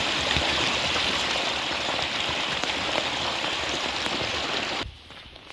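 Steady hiss of water, a dense patter of falling drops, which stops abruptly near the end.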